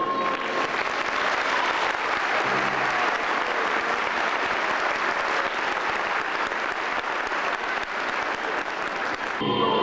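Audience clapping: a steady, even wash of applause. Music starts up again just before the end.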